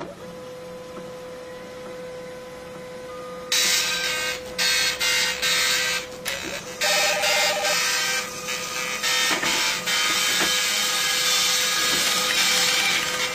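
Printing machine running: a loud, even mechanical noise that sets in about three and a half seconds in, with several brief dropouts and a short tone near the middle. Under it runs a faint steady hum.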